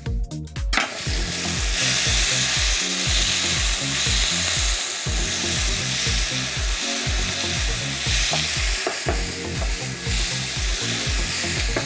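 Stir-fry of onions and peppers with beef broth sizzling hard in a hot pan. The sizzle drops out for a moment at the start and comes back strongly about a second in. Background music with a steady bass beat plays underneath.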